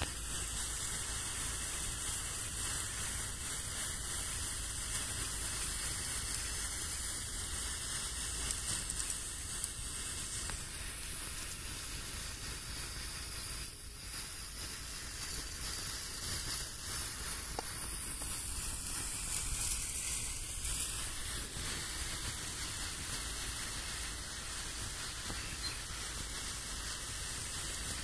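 Large snake-pellet fireworks (black snake tablets) burning with a steady hissing sizzle as their ash columns grow.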